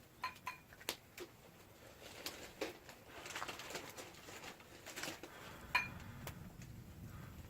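Scattered light clinks and taps of spoons against soup bowls, a few of them ringing briefly.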